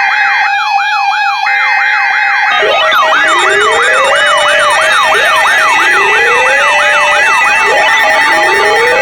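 Several sirens sounding together. A fast yelp sweeps up and down about two to three times a second over a steady tone. About two and a half seconds in, more siren sweeps join, with slow rising wails every two seconds or so.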